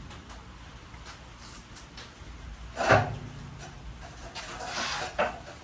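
Knocks and scraping of a heavy portable generator being moved down an aluminum loading ramp: a loud clunk about halfway through, then a short rising scrape that ends in another clunk near the end.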